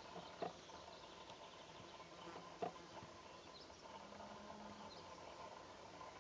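Faint open-air ambience with a few brief, faint bird chirps, broken by two short clicks about half a second and two and a half seconds in.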